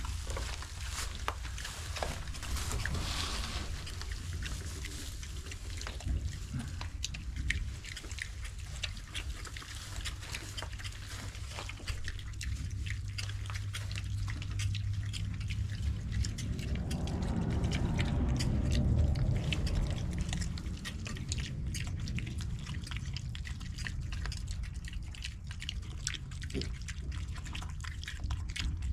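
Idaho Pasture piglets eating and snuffling: many small wet chewing and rooting clicks over a low steady rumble, with a louder stretch about two-thirds of the way through.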